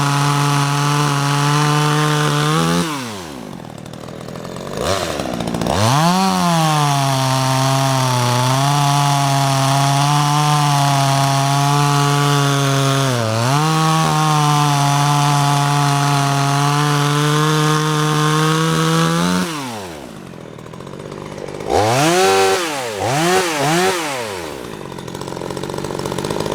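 Cheap 12-inch Chinese two-stroke chainsaw run at full throttle cutting wood, its pitch sagging a couple of times under load. The throttle is let off twice so the engine falls back toward idle, and it is blipped three times in quick succession near the end.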